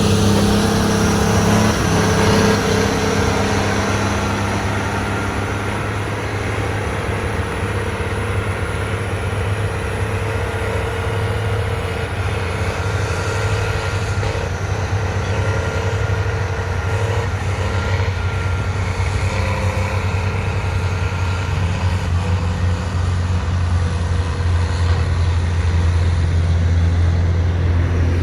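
Heavy diesel engine of a motor grader running steadily under work, a deep engine hum with some higher mechanical whine, growing a little louder toward the end.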